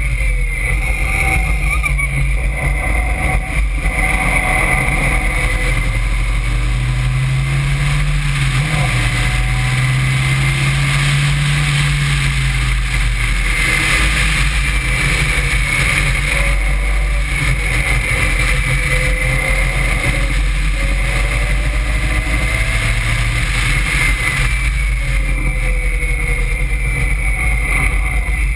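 Caterham Seven's engine running hard on track, its pitch rising and falling again and again through acceleration, gear changes and braking. It is heard from inside the open cockpit, with a steady rush of wind over the car.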